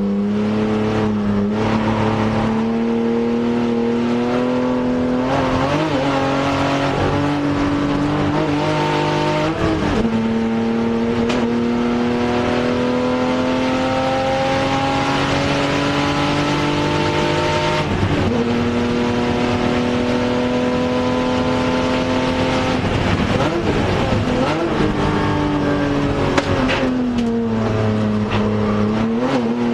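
Race car engine heard from inside the cabin under hard acceleration. Its pitch climbs steadily between gear changes, with drops at upshifts about ten and eighteen seconds in. Later it falls and wavers as the car slows, then climbs again near the end.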